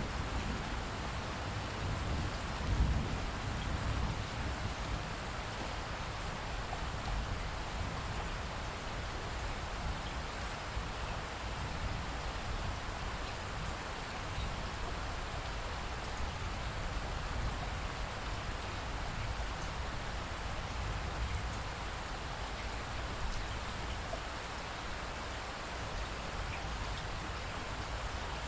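Steady rain pattering, with a low rumble of thunder that swells a few seconds in and then eases back under the rain.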